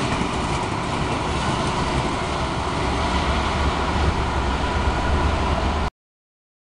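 Freight train of loaded open box wagons, hauled by a Class 66 diesel locomotive, rolling past close by: a steady, loud rumble of wagon wheels on the rails. The sound cuts off suddenly near the end.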